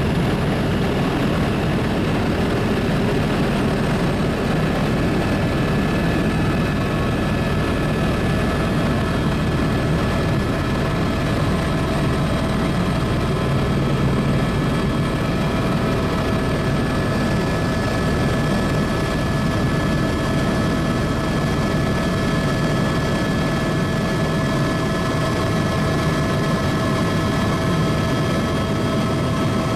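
Helicopter in steady cruising flight, heard from on board: a constant rush of rotor and engine noise with several unchanging high whining tones over it.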